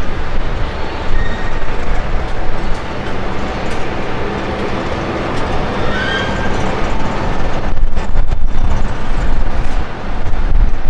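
Steady airport ramp noise: a loud low rumble with a hiss over it, getting louder and more buffeting about eight seconds in.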